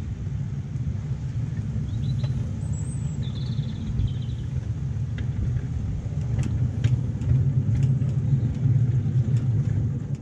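A 7¼-inch gauge miniature locomotive running along its track, heard from on board as a steady low rumble of wheels and drive. Occasional sharp clicks come through in the second half.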